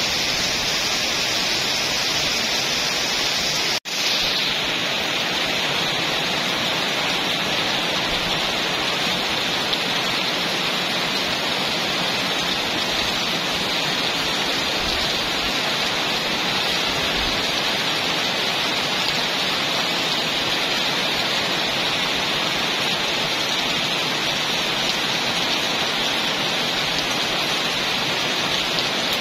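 Very heavy rain pouring down steadily, an even, unbroken hiss. The sound drops out for an instant about four seconds in.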